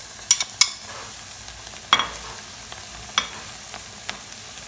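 Steel spoon scraping chopped vegetables out of a ceramic bowl into a steel pot and stirring them, with several sharp clinks of metal on the bowl and pot rim, a cluster near the start and single ones about two, three and four seconds in.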